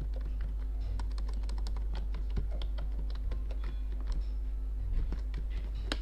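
Typing on a computer keyboard: a quick, irregular run of keystroke clicks over a steady low hum.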